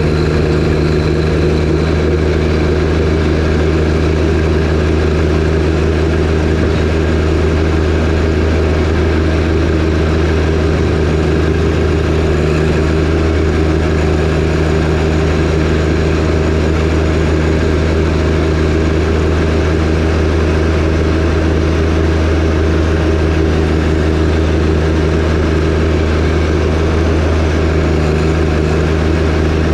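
John Deere 1025R compact tractor's three-cylinder diesel engine running steadily at an unchanging speed.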